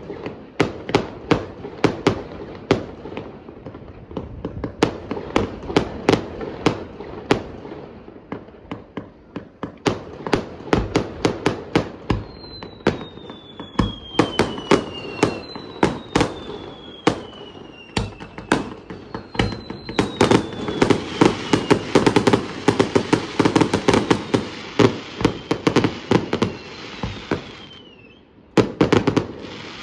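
Fireworks going off in quick succession: a steady run of sharp bangs and cracks, with several falling whistles from about halfway through. Late on, a dense crackling spell builds and then stops abruptly, followed by a few more loud bangs near the end.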